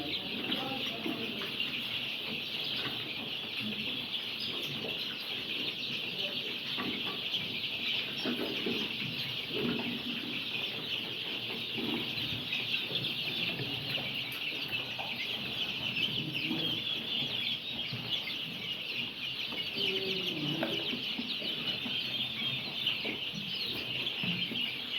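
A large flock of young layer chicks peeping without pause, a dense, high-pitched chorus of overlapping cheeps.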